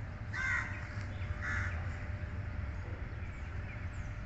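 A bird calling twice, short harsh calls about a second apart, over a steady low rumble.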